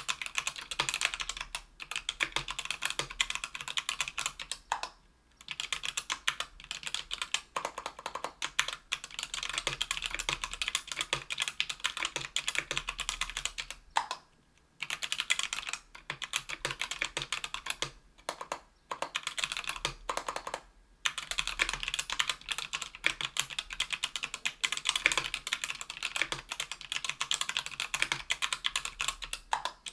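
Fast, continuous typing on a Tofu 60% aluminium keyboard with stock, unlubed CannonKeys Lilac 65g tactile switches on an aluminium plate: rapid keystroke clacks, broken by a few brief pauses.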